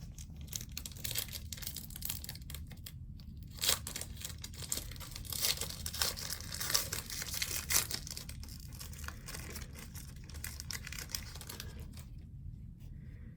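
A trading-card pack's wrapper being torn open and crinkled, with sharp rustles that are loudest between about four and eight seconds in, then fading to light handling near the end.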